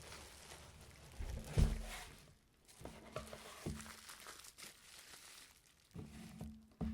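Packaging crinkling and rustling as the Logitech Z110 speakers are unpacked from their box, with a few knocks. The loudest knock comes about a second and a half in.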